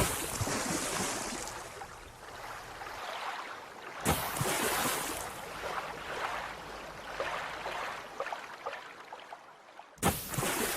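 Water splashing and lapping, cut into three stretches with abrupt jumps about four seconds in and near the end.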